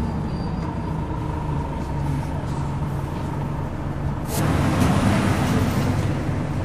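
A single-deck bus's diesel engine heard from inside the cabin, running steadily as the bus drives along. About four seconds in, a louder rushing hiss comes in for a couple of seconds.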